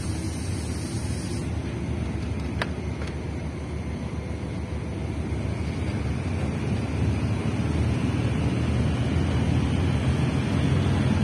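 Locomotive-hauled express passenger train pulling out of a station, heard from an open carriage door: a low rumble that grows steadily louder as the train gathers speed, with one sharp click a couple of seconds in.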